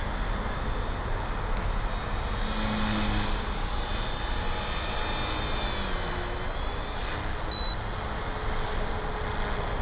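HK-450TT Pro electric RC helicopter flying at a distance: a steady, high motor-and-rotor whine over a constant rushing background. The whine's pitch dips and comes back up about six to seven seconds in.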